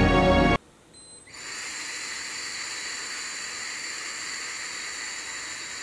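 Background music cuts off just after the start. About a second later comes a steady, sustained breath blown into a handheld breathalyzer for a blood-alcohol test: a hiss with faint high tones lasting about four seconds.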